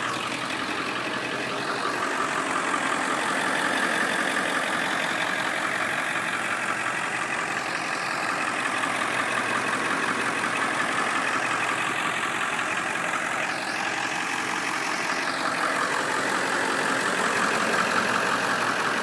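Ford 7.3-litre Powerstroke V8 turbo diesel idling steadily.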